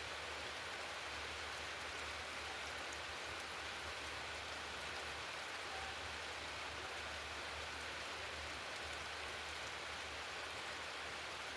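Steady rain falling, an even hiss with no single sound standing out.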